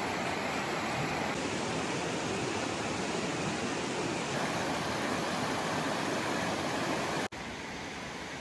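Fast, shallow river rushing over rocks: a steady, loud wash of water noise. It cuts out for an instant about seven seconds in and comes back a little quieter.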